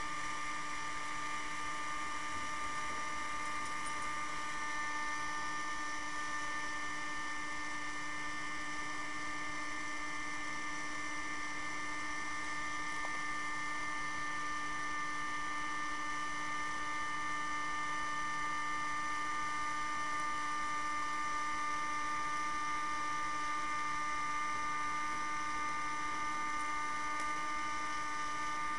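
Heat gun running steadily, a constant motor whine and hum over the hiss of its airflow, blowing hot air onto a circuit board to melt the lead-tin solder holding its components.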